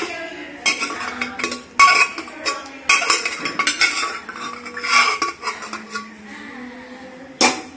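Metal spoon stirring beef and rice in an aluminium pot, with irregular clinks and scrapes against the pot. The sharpest knocks come just under two seconds in and near the end.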